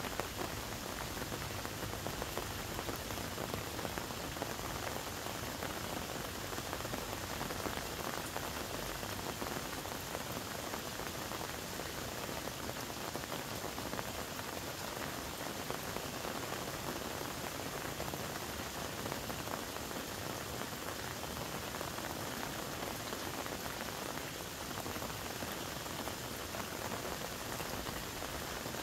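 Steady, dense patter of water drops, like rain falling on a surface, with no pause or change.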